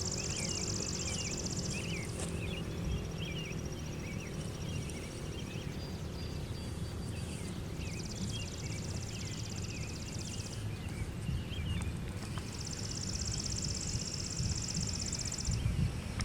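Songbirds: a high, rapid trill repeated four times, each about three seconds long, with scattered short chirps, over a steady low rumble. A faint low tone from the Federal Signal 508 siren winding down fades out within the first few seconds.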